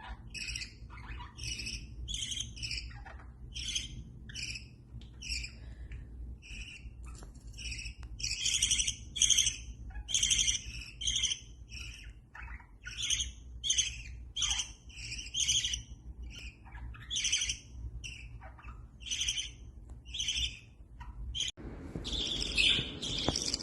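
Pet budgerigar chirping: a steady run of short, high chirps, about one or two a second, turning into denser, louder chatter near the end.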